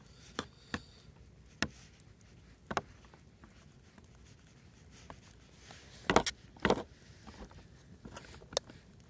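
Metal spoon knocking and scraping against a cooking pot and plate while fried rice is served out: a few light clicks in the first three seconds, then louder knocks about six to seven seconds in and again near the end.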